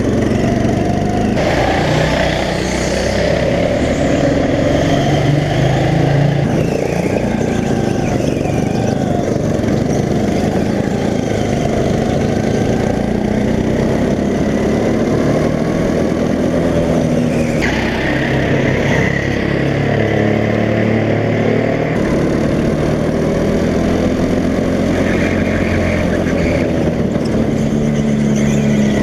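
Go-kart engine running hard, heard from the driver's seat, its pitch rising and falling as the kart speeds up and slows around the track.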